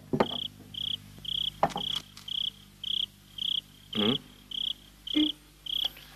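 A cricket chirping steadily at a high pitch, about two chirps a second, with a few light clicks and knocks among them.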